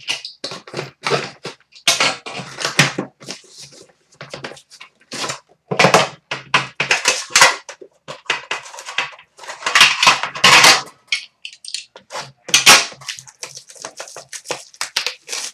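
Cardboard box and plastic-wrapped card pack being handled and opened by hand: irregular crinkling and rustling of cellophane and packaging, with scrapes and light taps of the box and case.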